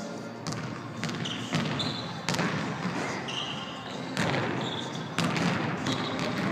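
A basketball bouncing on a hardwood gym floor as it is dribbled, with a series of sharp bounces. Short high squeaks from sneakers on the court come in between, in a large gym.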